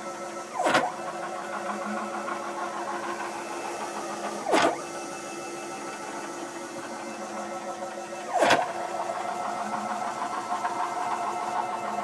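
Stepper motor driving a ball-screw axis on a home-built CNC router gantry, running with a steady whine of several tones. A brief louder burst breaks in three times, about four seconds apart.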